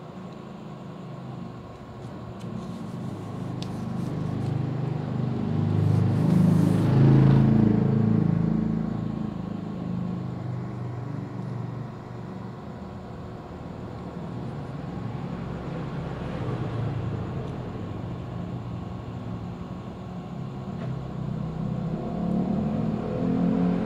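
Low rumble of a motor vehicle's engine, swelling to its loudest about seven seconds in, easing off, then rising again near the end.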